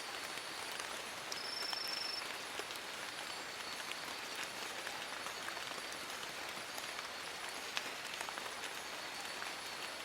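Steady rain falling in a forest, with many separate drops pattering on leaves. A brief high, even tone sounds about a second and a half in.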